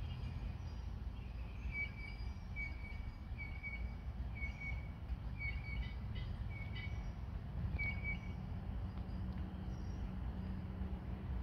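A small bird calling in short high notes, often doubled, repeated about once a second from about two seconds in until about eight seconds in, over a steady low rumble of outdoor background noise.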